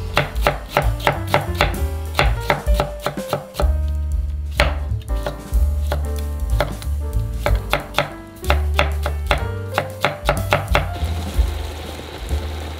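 Kitchen knife slicing a cucumber on a wooden cutting board in quick, even strokes, over background music with a steady bass. Near the end, a pot of julienned burdock root bubbles as it simmers in its braising liquid.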